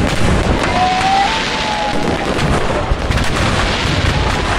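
Fireworks display going off without pause: a dense, continuous run of bangs, pops and crackle.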